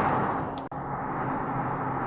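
Howling wind blowing steadily, a continuous rushing noise, with a brief sudden dropout under a second in.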